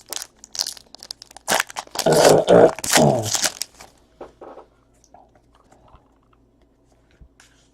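Foil trading-card pack wrappers being torn open and crinkled: a run of sharp crackles over the first four seconds, loudest about two to three seconds in, thinning to a few faint ticks.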